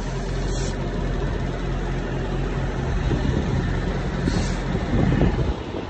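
Semi truck's diesel engine idling with a steady low hum.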